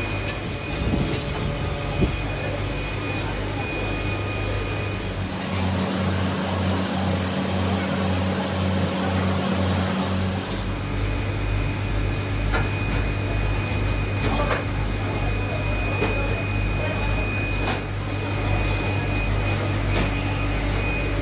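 Steady mechanical drone of foundry machinery with a low, even pulsing, and occasional sharp clinks of steel racks being handled.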